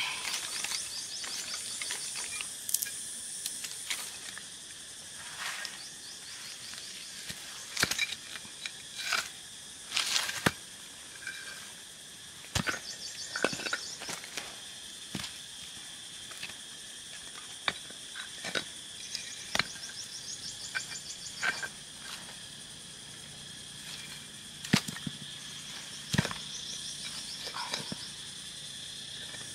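Steady high chirring of insects, with short pulsed trills repeating every few seconds, broken by scattered sharp knocks and clicks.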